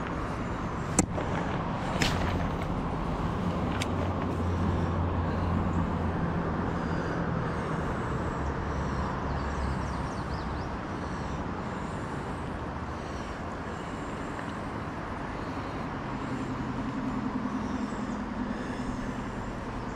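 Outdoor riverside ambience: a steady rush of moving water, with a low rumble that swells and fades over the first half, and three sharp clicks in the first four seconds.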